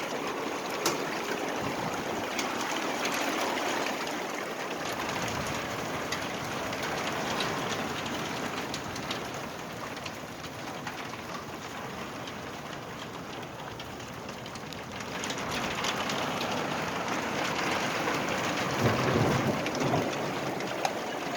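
Graupel, soft snow pellets, falling steadily and pattering on surfaces as a dense hiss of tiny ticks, like rain; it eases slightly in the middle and picks up again.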